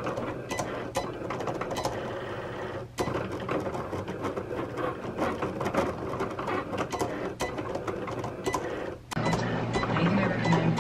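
Cricut vinyl cutting machine at work, its blade carriage shuttling back and forth as it cuts a decal from vinyl: a busy mechanical whirring with many small clicks and a brief pause about three seconds in. The machine sound stops abruptly about nine seconds in, giving way to a steadier low hum.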